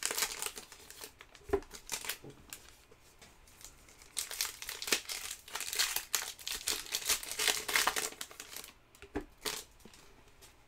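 Foil wrapper of a basketball trading-card pack crinkling and tearing as it is pulled open by hand, in bursts, dying away near the end.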